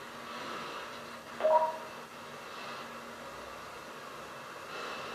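Open radio link from a pressurised suit: steady hiss and a low hum, with slow swells of noise about every two seconds from breathing into the helmet microphone. About a second and a half in comes a short, loud two-tone beep.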